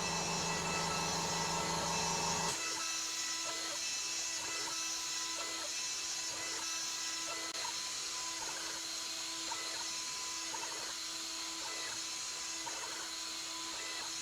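CNC milling machine running: a steady spindle whine over a hiss, with faint irregular ticks. A deeper hum under it stops about two and a half seconds in.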